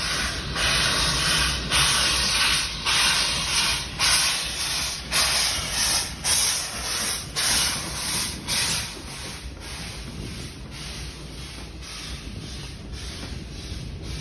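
Steam locomotive chuffing as it pulls away, a beat of hissing exhaust about once a second. The beats fade out about nine seconds in, leaving a lower steady hiss.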